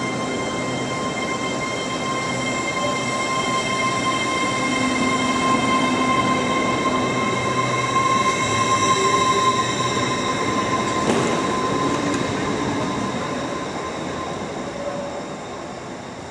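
Train running with a steady high-pitched whine over rumbling noise, growing louder toward the middle and then fading away.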